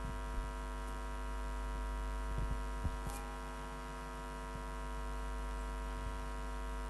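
Steady electrical mains hum with many overtones in the microphone and sound system, broken by a few faint short clicks.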